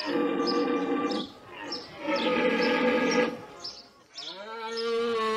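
Antelope calls: three long pitched calls, the last rising at first and then held steady, over short high bird chirps repeating throughout.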